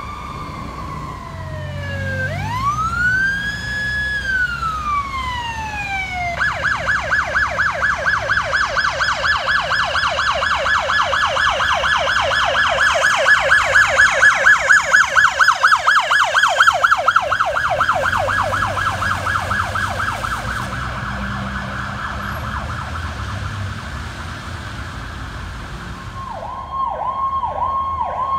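Fire department emergency vehicle's electronic siren: a slow wail rising and falling, switching about six seconds in to a fast yelp that grows louder as the vehicle passes and then fades, over a low engine rumble. Near the end a different siren takes over with a choppier repeating pattern.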